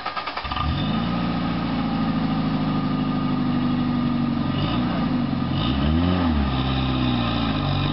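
Suzuki Samurai rock crawler's engine cranking on the starter and catching about half a second in, then idling steadily. It is revved up and back down a couple of times near the middle.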